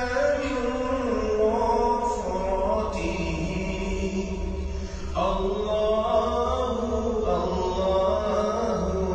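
A single voice chanting a melodic Arabic recitation, holding long notes that waver in pitch, with a new phrase beginning about five seconds in.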